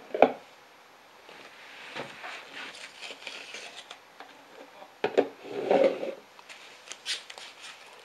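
Cardboard watch box and foam packing being handled: a couple of sharp knocks at the start, then rustling and rubbing as corrugated foam wrap is pulled off a small metal watch case, with a louder rub about five seconds in and a few clicks near the end.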